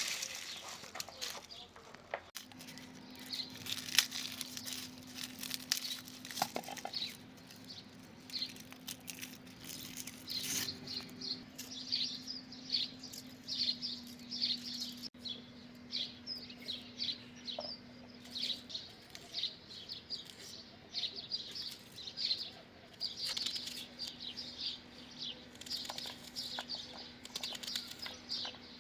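Small birds chirping in short repeated high calls, with a faint steady low hum underneath that starts about two seconds in.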